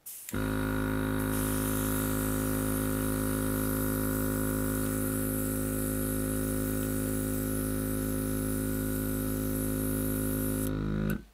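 Small battery-powered Oasser airbrush compressor running with a steady hum, with a high hiss of air and paint spraying from the airbrush from about a second in. Both stop suddenly near the end as the motor shuts off.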